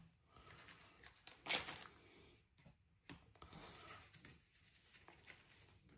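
Foil trading-card pack wrappers rustling and crinkling as the packs are handled and set down, faint and irregular, with one louder rustle about a second and a half in.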